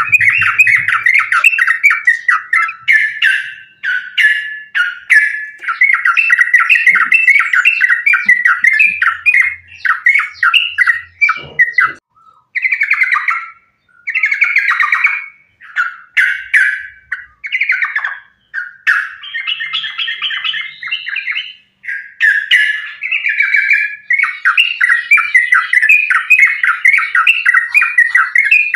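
Yellow-vented bulbul (trucukan) singing a rapid, continuous chattering song in the aggressive fighting style, broken by a few short pauses.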